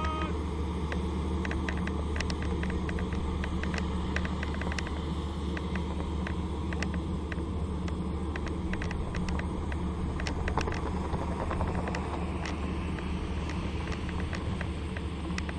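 A steady low engine drone with small clicks and rattles scattered through it.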